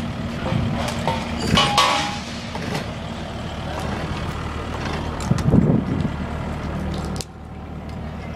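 Engine of a forklift-type piece of heavy equipment running steadily close by, with a short loud noisy burst about two seconds in and a brief surge a little after five seconds; the level drops suddenly near the end.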